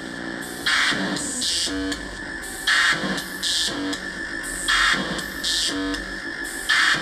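Homemade CMOS synthesizer, 4017 decade counters sequencing 4046 PLL oscillators, playing a looping rhythm: hissy noise bursts like drum hits alternating with short pitched blips that step between notes, the pattern repeating about every two seconds.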